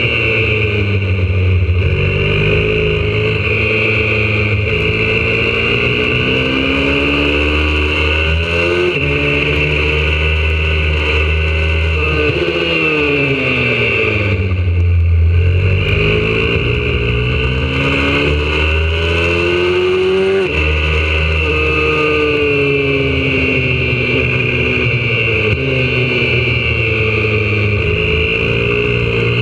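Single-cylinder four-stroke engine of a YCF 125cc pit bike at racing pace, heard from onboard: revs climb through the gears with sudden drops at each shift, and in the middle they fall away on the brakes into a corner before rising again on the throttle.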